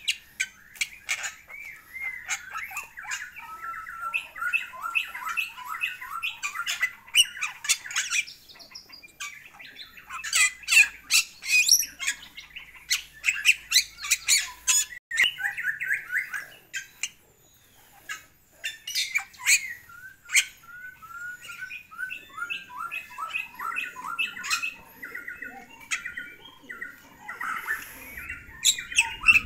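Caged Bali myna in full song: harsh squawks and sharp clicking notes mixed with fast runs of chattering, repeated notes, with a short lull about two-thirds of the way through.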